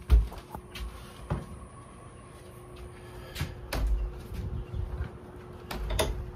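A door opening and shutting: a loud thump just after the start, then scattered sharp knocks and clicks, over a faint steady hum.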